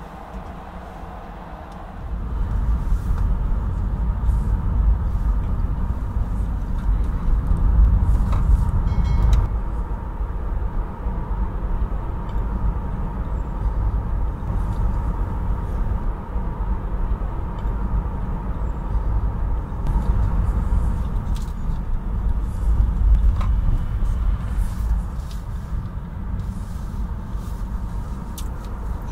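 Car driving through city streets: a steady low rumble of engine and tyre noise, which grows louder about two seconds in.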